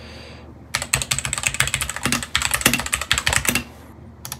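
Typing on a computer keyboard: a quick run of key clicks starting just under a second in and lasting about three seconds, then stopping.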